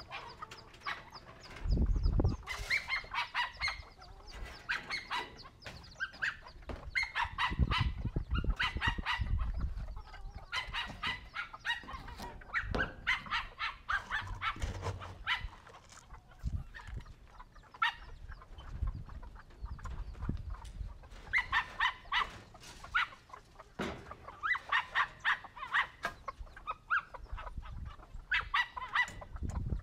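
Chickens clucking in repeated rapid runs of short calls, with a few low thuds in between.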